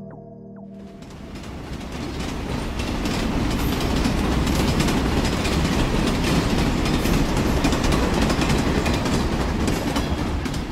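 Train running on rails: a steady rumble with the clickety-clack of the wheels. It swells over the first few seconds, then holds.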